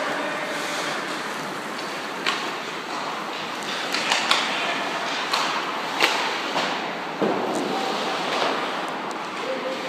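Steady game-side background noise broken by about half a dozen sharp cracks and knocks, as of play on a court or rink, with a few brief distant calls.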